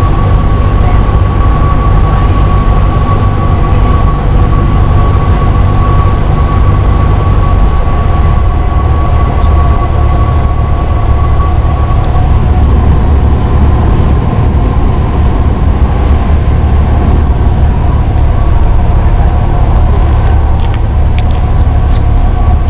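Cessna 172's piston engine and propeller running steadily, heard inside the cabin as a loud, unbroken drone with a steady high whine over it.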